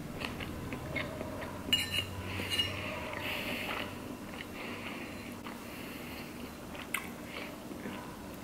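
Close-up chewing and mouth sounds of someone eating a sushi roll, with a few sharp clicks and taps, the loudest about two seconds in.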